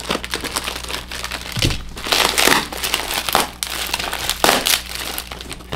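Packaging crinkling and rustling as it is handled and opened, with irregular crackles and louder flurries about two seconds in and again about four and a half seconds in.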